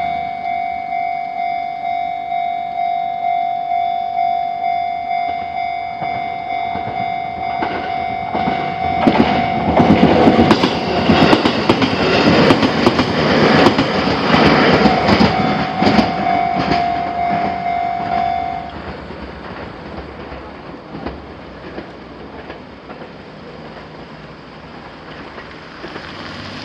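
Japanese level-crossing warning bell ringing in steady repeated pulses while a train passes over the crossing, its wheels clattering over the rails for about ten seconds. The bell cuts off just as the train clears, leaving quieter background noise.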